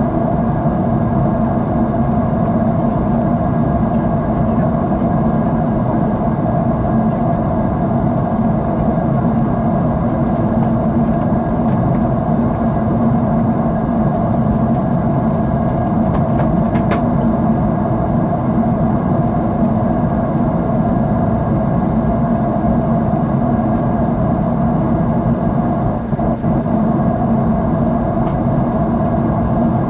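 Steady drone of a jet airliner's engines and rushing air heard inside the passenger cabin, a low even roar with a faint steady hum in it.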